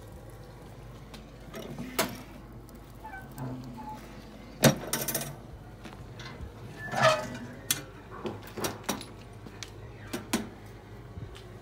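Metal clanks and clicks from a steel offset smoker being handled as the cook-chamber lid is shut: a sharp clank about five seconds in, a rattling, creaking clatter a couple of seconds later, then a run of sharp clicks.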